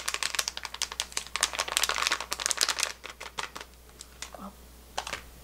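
Plastic pouch of wasabi powder crinkling as it is shaken over a bowl and handled, the crinkling dense for about three seconds and then thinning to a few scattered crackles.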